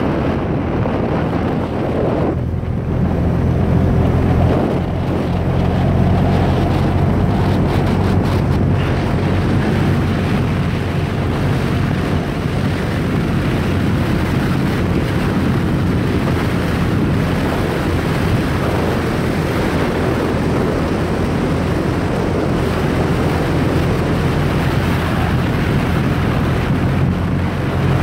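A vehicle engine running at a steady pace while driving a sandy dirt trail, with wind noise on the microphone and tyre rumble mixed in.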